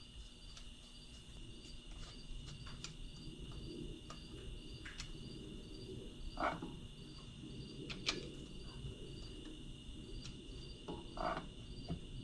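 Faint, steady insect chirping with a regular pulse of high pips, broken by a few light clicks and two short brighter sounds.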